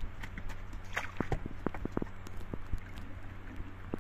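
Small wooden boat being pushed along with a bamboo pole: water splashing and sloshing around the pole and hull, with scattered irregular knocks and clicks of wood, over a steady low hum.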